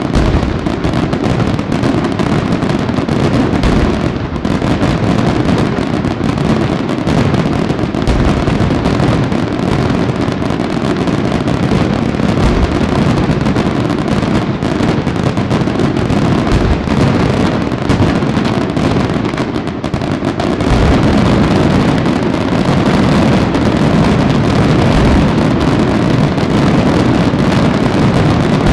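Aerial fireworks shells bursting in a dense barrage, the rapid, overlapping bangs merging into a near-continuous rumble. It grows louder about two-thirds of the way through.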